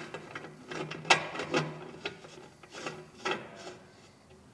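Brass pipe fitting being turned by hand onto a threaded nipple in a metal burner pan: metal-on-metal scraping of the threads with a few sharp clicks, the loudest about a second in.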